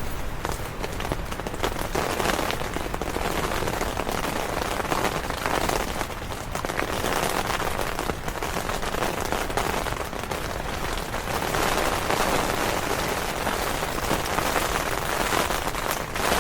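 Rain falling on a tent's fabric, a dense continuous patter that grows louder and softer in waves.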